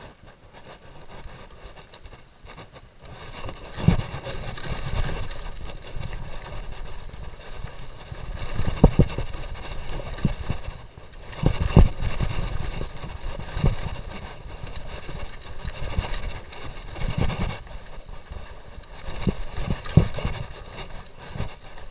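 Downhill mountain bike rolling over a dirt and rock trail: steady tyre noise, with sharp, irregular knocks as the wheels and suspension take hits from rocks. It starts quiet and gets louder about four seconds in as the bike picks up speed.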